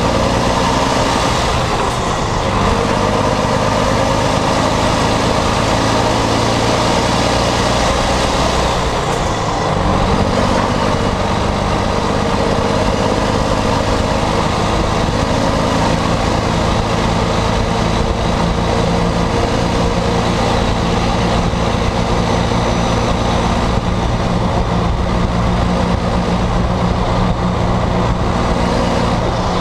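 Volvo FMX 460's 13-litre straight-six diesel running under way through a broken, straight-through exhaust stack: a loud, raw exhaust note heard right at the pipe. The note dips briefly about nine seconds in, then carries on steady.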